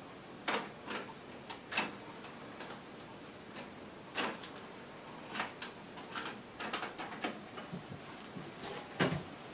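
Pioneer CT-M6R six-cassette changer's mechanism making a series of irregular clicks and clunks as it works through its tapes and shifts from rewinding to forward winding. The loudest clicks come about half a second in, near two seconds and near the end.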